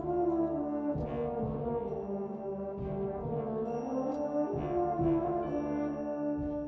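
High school wind ensemble playing: held brass chords, led by horns and trombones, with drum strokes every second or two.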